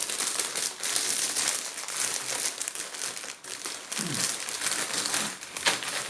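Plastic crisp packet crinkling and crackling as it is handled.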